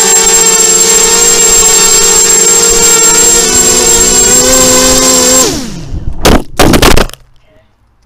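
ZMR250 quadcopter's brushless motors and propellers whining steadily in a hover, heard close up from the onboard camera. About five seconds in, the motors cut as the quad is accidentally disarmed in flight, and the whine slides steeply down in pitch. The falling quad then hits the ground with two loud impacts, breaking a propeller.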